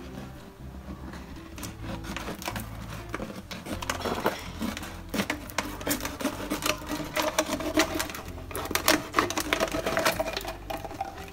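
Scissors cutting through a thin plastic water bottle: a quick run of snips with the plastic crackling and crinkling, growing busier about halfway through.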